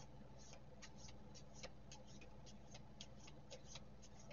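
Faint, irregular clicks and ticks, about four a second, of tarot cards being handled while pulling clarifying cards, over a low steady room hum.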